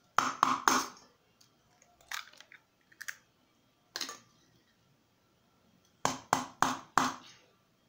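Hens' eggs being cracked open: three quick, sharp taps of a shell near the start, a few lighter clicks in the middle, and four more taps on a second egg about six seconds in.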